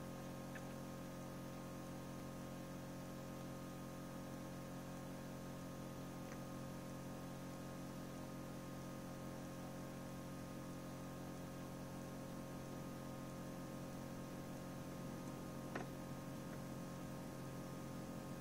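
Steady mechanical hum of an egg incubator running, made of several held tones, with a single short click near the end.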